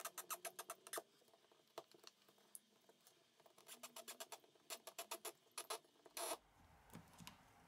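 Plastic pry tool working under a phone battery to lift it off its adhesive: faint runs of quick small clicks and crackles, with a short scrape about six seconds in.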